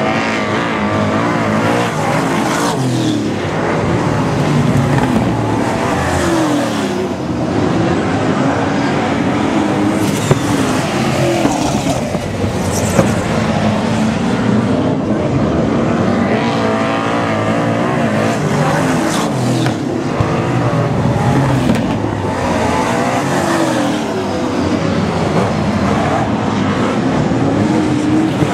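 Several speedway super saloons racing together, their V8 engines running at high revs without a break. The engine notes overlap and rise and fall in pitch as the cars go past and round the oval.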